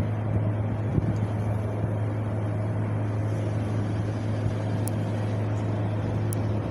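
Wind blowing steadily with a deep, constant low rumble, swelling in a gust about a second in.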